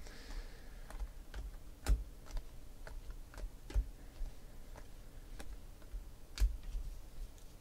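A stack of baseball trading cards being flipped through by hand: irregular light clicks and taps as each card is slid off the pile, with a few louder taps, the loudest about six seconds in.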